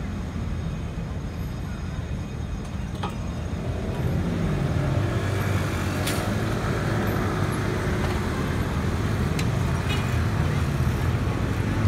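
Street traffic with a low engine running, growing louder about four seconds in, and a few sharp clicks.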